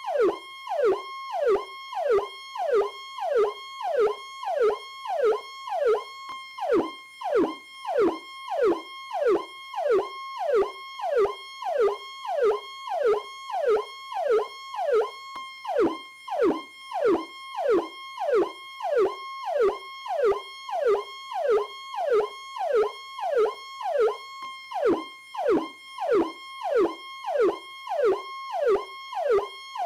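Federal Signal PowerCall electronic police siren sounding continuously. Each cycle is a short held high tone followed by a quick downward sweep, repeating evenly about three times every two seconds.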